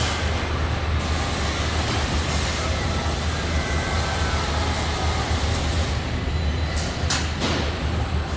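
Assembly plant floor noise: a steady low machinery hum under a wash of general noise, with a few short, sharp sounds about seven seconds in.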